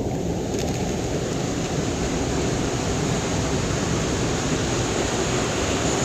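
Steady rush of running water, an even hiss reaching from low to high pitch without a break.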